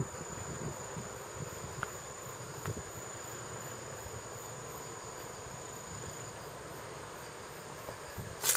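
An insect singing a steady, high-pitched trill that stops about six seconds in. A brief thump comes near the end.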